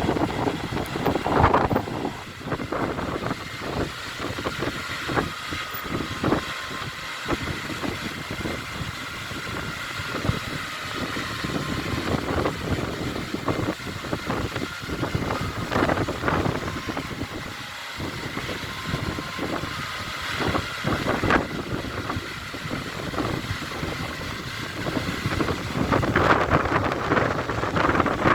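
Steady rushing roar of a large waterfall, with wind buffeting the microphone in gusts that are strongest about a second in and near the end.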